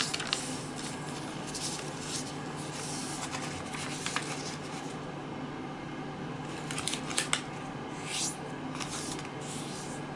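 Origami paper being handled and folded on a wooden tabletop: irregular crisp rustles and swishes as the paper is folded corner to corner and fingers run along the crease, over a steady low hum. The sharpest rustles come at the very start and about seven seconds in.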